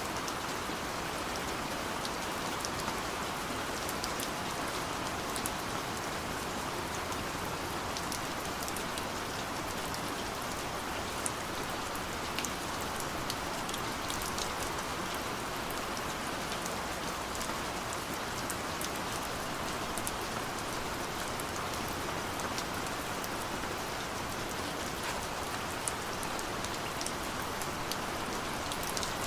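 Steady rain falling, a continuous even hiss with many small drop ticks scattered through it.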